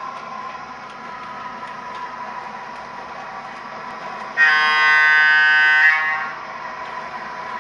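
MTH Premier PRR FF1 O-gauge model electric locomotive running with a steady hum, sounding one loud horn blast from its onboard sound system about four and a half seconds in, held for nearly two seconds.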